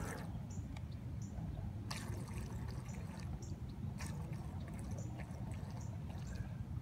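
Low rumble of wind on the microphone at the water's edge, with faint short high chirps every second or so and two clicks about two seconds apart.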